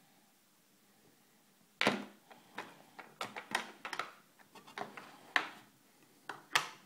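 Clear plastic latched case being unlatched and its lid opened by hand: a run of sharp plastic clicks and snaps, the loudest about two seconds in, with two more strong snaps near the end.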